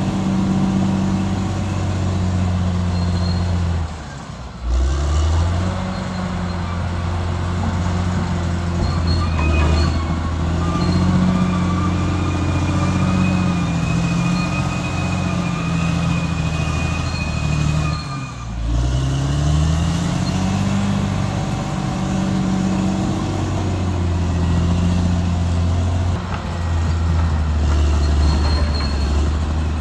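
Caterpillar D6R XL bulldozer's diesel engine running steadily at working revs, with two brief drops in level about four and eighteen seconds in. A thin high whine comes and goes through the middle.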